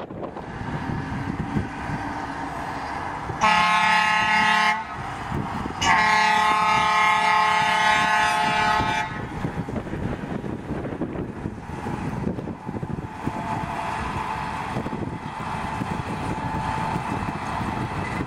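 Small narrow-gauge diesel locomotive sounding its horn twice, a short blast about three and a half seconds in and a longer blast of about three seconds soon after, with the engine and wheels running steadily as it pulls its carriage along.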